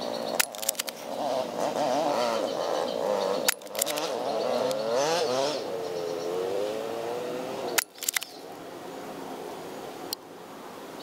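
Crown Type96 Junior spring air-cocking airsoft rifle fires three times, each shot a sharp double click, about half a second in, at about three and a half seconds and near eight seconds. Under them runs a wavering engine-like drone that rises and falls in pitch and drops away after the last shot.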